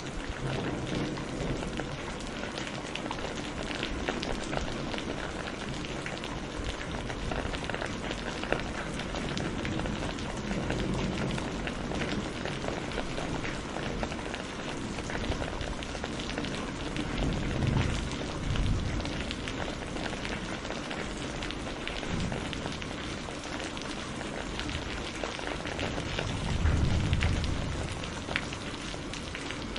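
Heavy rain falling steadily in a forest. Low rolls of thunder come about two-thirds of the way through and again near the end.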